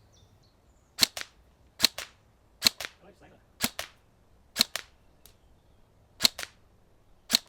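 Tokyo Marui Next Generation Recoil Shock electric airsoft rifle firing seven single shots, roughly one a second with a short gap near the middle. Each sharp shot is followed at once by a fainter click.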